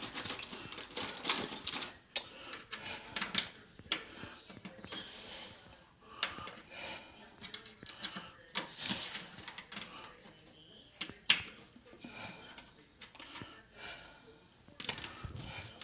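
Irregular metal clicks and scrapes from the oven door's hinge and latch hardware being worked by hand. The sharpest click comes about eleven seconds in.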